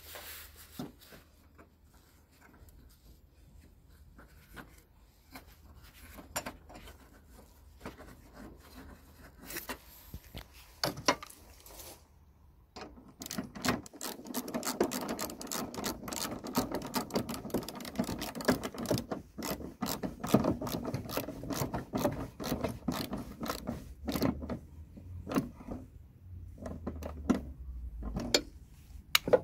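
Socket ratchet clicking rapidly in a run of about ten seconds from about halfway through, as a headlight mounting bolt is wound in. Before it come scattered clicks and taps of the tool being handled.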